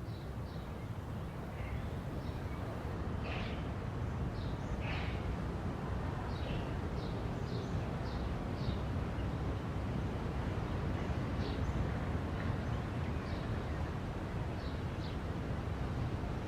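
Birds chirping in short, high calls every second or so over a steady low rumble of outdoor background noise that slowly grows louder.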